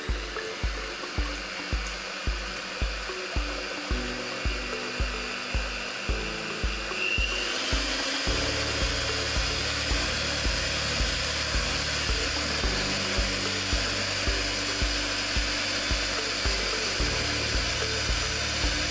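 Electric hand mixer whirring as it whips egg whites to a foam in a glass bowl; its whine steps up in pitch about seven seconds in as the motor speeds up. Background music with a steady beat of about two thumps a second plays underneath.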